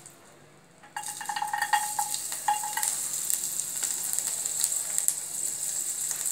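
Chopped garlic going into hot melted butter in a pan and starting to sizzle suddenly about a second in, with a few clinks and a brief metallic scrape as it goes in, then a steady crackling fry.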